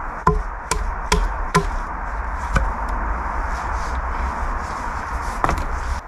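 Small hatchet chopping into a wooden pole: four quick blows about half a second apart, another a second later, and a last knock near the end, over a steady background hiss.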